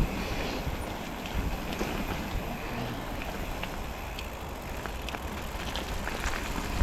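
Wind noise on the microphone and the rumble of bicycle tyres rolling over a trail, with scattered small clicks and rattles from the bike.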